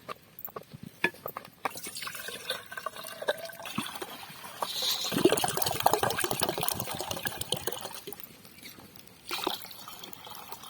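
Tender coconut water pouring from a cracked-open green coconut into a vessel, a splashing pour that is fullest about five to seven seconds in and then tails off. A few sharp knocks come near the start.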